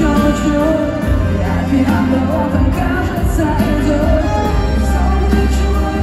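Live pop song over an arena sound system: a female lead vocal over a band with a heavy bass line.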